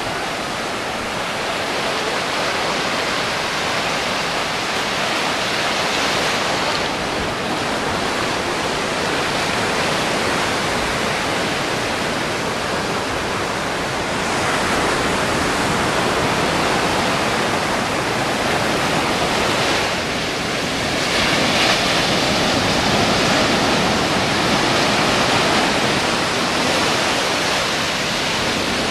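Ocean surf breaking and washing up a sandy beach: a steady rushing hiss of waves and foam that swells louder in places as sets come in.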